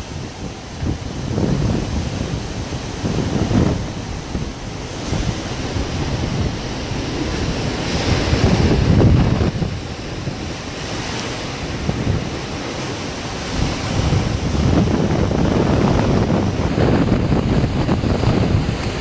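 Hurricane-force wind gusting and buffeting the microphone, the rush rising and falling in uneven surges, loudest about eight to ten seconds in.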